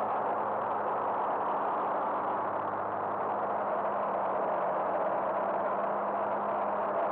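Steady drone of a Cirrus SR20 in flight heard from inside the cabin: the six-cylinder piston engine and propeller humming under a constant rush of airflow, with no change in power.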